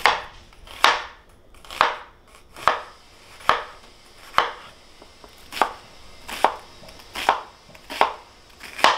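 Cutco kitchen knife chopping an onion on a thick wooden cutting board: about eleven even strokes, a little under one a second, each ending in a sharp knock of the blade on the wood.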